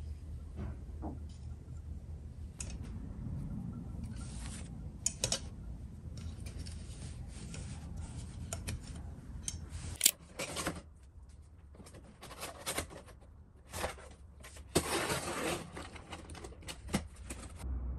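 Light metal clicks and rattles of a folding aluminium laptop stand being unfolded and its hinged arms adjusted, over a low steady hum. About ten seconds in a sharp click, then a box cutter scraping along packing tape on a cardboard box, with a longer rasping slit near the end.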